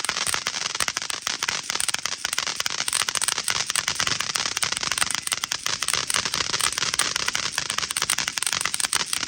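Fireworks crackling: a dense, continuous barrage of rapid sharp pops.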